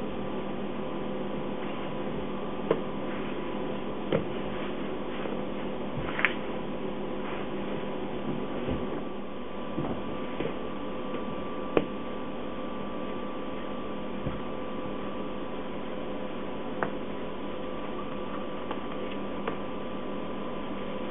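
Steady electrical hum of bakery equipment, with a handful of short knocks and taps scattered through it as dough is shaped by hand on a wooden bench.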